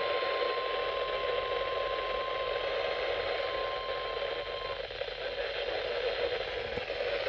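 NOAA Weather Radio warning alarm tone, a single steady 1050 Hz tone over heavy radio static, cutting off about two-thirds of the way through. The static then continues alone. The tone signals that a warning, here a severe thunderstorm warning, is about to be read.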